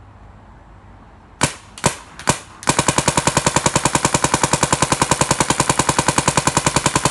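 DYE DM14 electronic paintball marker firing: three single shots about a second and a half in, then a rapid, even string of about eleven shots a second that keeps going, the marker set to ramping.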